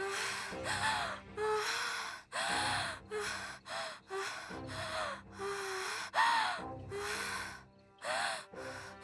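A woman gasping and choking in a run of short, strained breaths, some with a cry in them, as a scarf is pulled tight around her throat. A steady droning music bed runs underneath.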